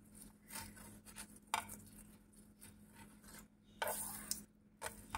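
Steel spoon scraping and rubbing on a non-stick frying pan as cooking oil is spread over a thepla cooking on it. There are a few louder scrapes about a second and a half in and again near the end.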